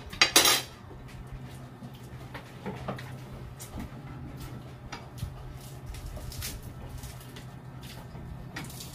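Mealtime sounds: scattered light clicks and clinks of plates, glasses and food being handled, over a steady low hum. A brief loud noise comes just after the start.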